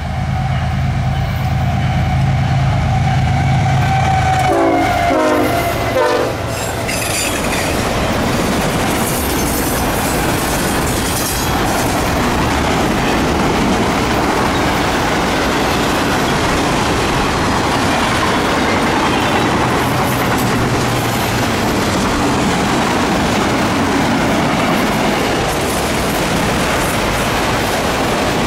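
BNSF diesel freight locomotive passing close by, its engine rumbling steadily, with a few short horn notes about five seconds in. Then a long string of autorack cars rolls past with a steady rolling noise of wheels on rail.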